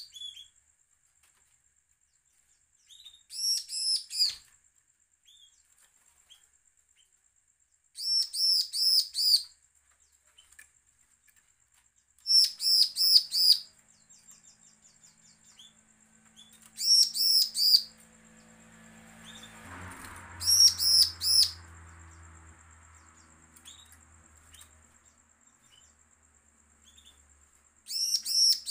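Caged bar-winged prinia (ciblek) singing: six bursts of rapid, high, repeated notes, each about a second and a half long, with pauses of a few seconds between them.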